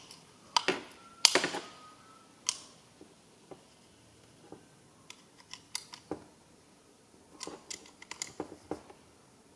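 Small metallic clicks and clinks of a ring spanner on a little nut on the aluminium top cover of a CAV injection pump as the nut is tightened. The loudest clink, about a second in, rings briefly, and lighter ticks come irregularly after it.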